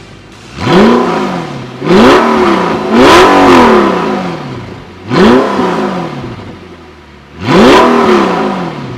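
Audi R8's 4.2-litre V8 with an aftermarket Powerflow exhaust revved five times in quick blips. Each rev climbs sharply and drops back to idle.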